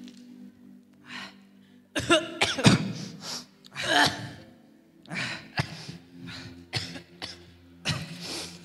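Starting about two seconds in, a man coughs and gasps into a microphone in repeated, irregular bursts after taking a swig from a bottle, as if choking on strong liquor.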